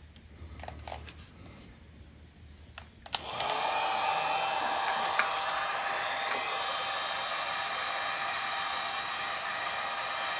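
Handheld electric heat gun switched on about three seconds in and then running steadily, its fan blowing with a thin steady whine. A few light clicks come before it starts.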